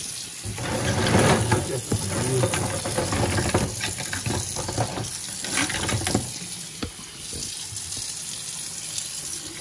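Kitchen tap running into a stainless-steel sink over a pile of mussels being rinsed clean of sand and dirt. Scattered short clicks come from the shells knocking together as hands rummage through them, busiest around the first two seconds.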